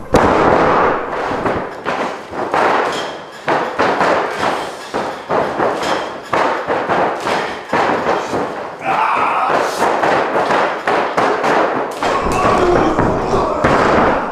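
Repeated heavy thuds of bodies landing on a wrestling ring's canvas during bump and flip practice.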